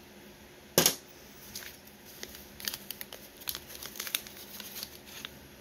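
A single sharp knock about a second in, then irregular crinkling and crackling of brown wrapping paper as a string-tied paper packet of rifle cartridges is handled.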